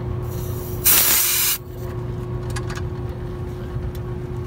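Short hiss of refrigerant vapor escaping as an air-conditioning gauge hose is unscrewed from the high-side service port. It swells about a second in and cuts off sharply half a second later: only a little vapor is lost because the hose's ball valve is closed.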